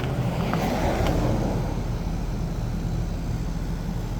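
Outdoor unit of a Carrier 38MAQ mini-split heat pump running with a steady low hum just after coming out of defrost. A brief rush of noise swells about half a second in.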